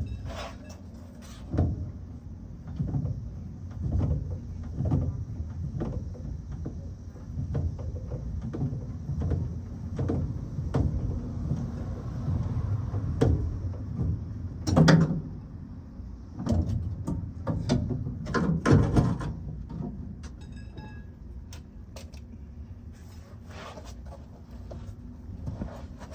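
Irregular clunks, knocks and rattles of metal parts being handled while the spare tire hoist is worked on, with two louder knocks about fifteen and nineteen seconds in.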